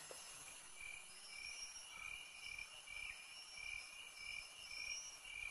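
Insects chirping faintly and steadily, with a short chirp repeating about three times a second over a constant high buzz.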